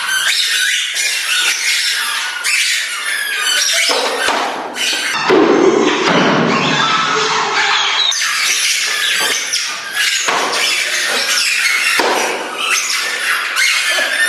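Squeaker toys tied to people's feet, squeaking over and over with each step, many short high-pitched squeaks overlapping.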